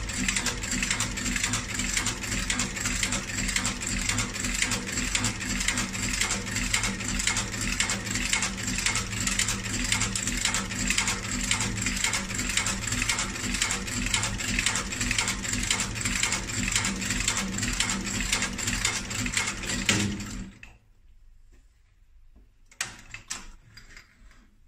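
Shoe outsole stitching machine running, sewing a double leather sole on with a fast, even mechanical clatter. It stops suddenly about 20 seconds in, leaving only faint handling sounds.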